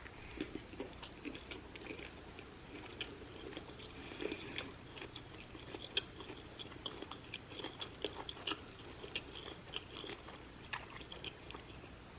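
A person chewing a mouthful of shrimp taco close to the microphone: a steady run of small wet smacks and soft crunches that stops shortly before the end.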